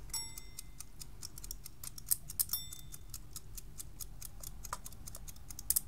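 Two IKEA wind-up egg timers running together, their clockwork mechanisms ticking in a rapid, even stream. Two brief ringing tones sound, one at the start and one about two and a half seconds in, with a few louder clicks around two seconds in and near the end.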